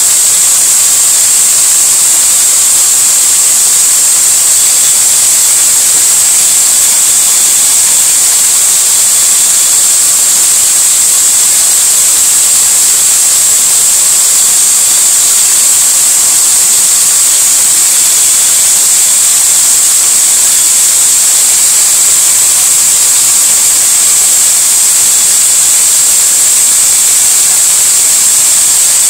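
Corded electric drill running steadily with an engine valve chucked in it, 80-grit sandpaper held against the spinning valve to clean the carbon off. It makes a loud, even high hiss with a faint motor whine under it.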